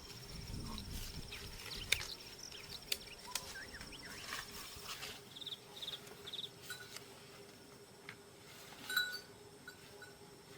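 Insects trilling: a high, steady pulsing buzz that stops about halfway through. Short chirps and a few sharp clicks are scattered over it.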